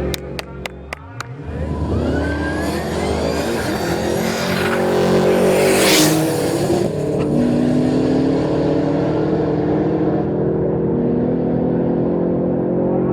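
Supercharged 6.2-litre LS3 V8 in a Holden VZ SS Commodore accelerating hard, its revs climbing, with the car passing loudly about six seconds in. A few sharp cracks come just before it pulls away.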